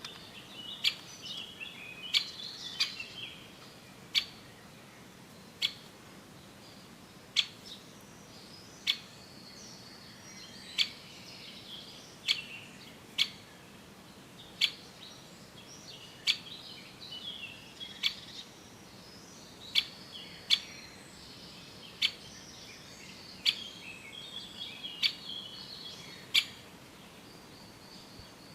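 Young great spotted woodpecker calling: sharp, short single notes about every one and a half seconds, with softer chirping between them.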